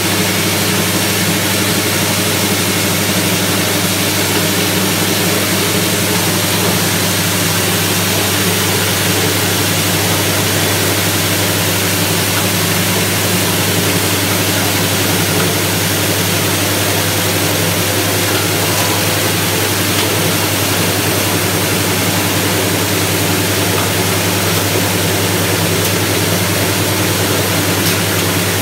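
Honda GX160 single-cylinder four-stroke petrol engine running steadily, driving a stainless-steel coffee huller, with a constant hum and dense hiss from the machine.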